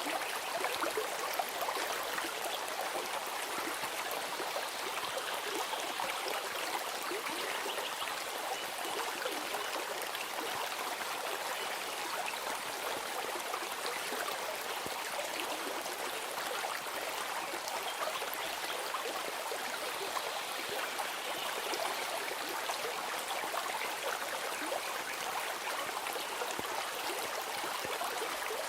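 Water of a stream running steadily, an even rush with fine flickering detail and no breaks.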